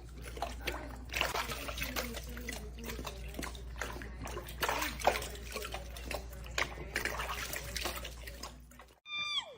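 Water splashing and trickling, with many irregular small knocks and clicks over a steady low hum. It cuts off suddenly near the end, and a short high pitched sound follows.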